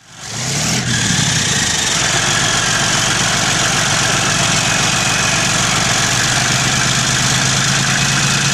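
Simulated diesel engine idling from the 1/16 Leopard 2A6 RC tank's sound unit. It fades in over the first half second, then runs as a steady, even rumble.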